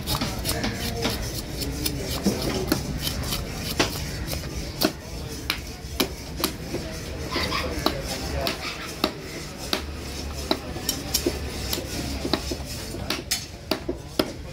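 A large knife scaling a fish and striking a wooden chopping block: a quick, irregular run of sharp scrapes and clicks.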